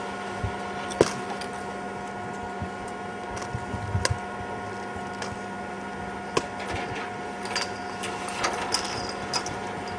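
Steady mechanical whirring hum of a camcorder's own tape drive, with a few faint clicks scattered through it.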